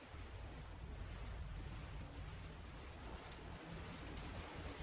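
Seaside outdoor ambience: a steady low rumble under a faint hiss, with two short clusters of very high, thin chirps, about two seconds in and again just past three seconds.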